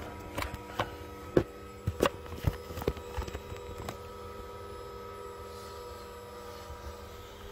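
Steady electric hum made of several fixed tones. A string of sharp knocks and clicks over the first four seconds comes from the phone being handled and set down.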